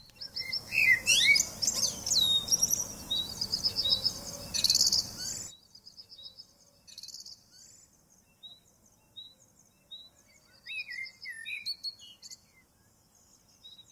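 Birds chirping and whistling, many quick rising and falling calls over a steady background hiss. About five and a half seconds in the hiss cuts off and only sparser, quieter chirps remain, one short chirp repeating a little more than once a second.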